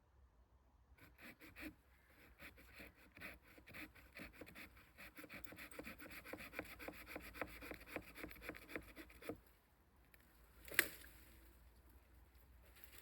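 Rapid rhythmic rasping strokes on wood, like a hand saw or knife working a piece of wood, running for about eight seconds and then stopping. One sharp knock follows a little later.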